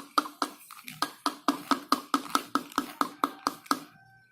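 A stirrer knocking against the side of a plastic container as slime is stirred: a steady run of sharp, slightly ringing taps, about four a second, stopping shortly before the end.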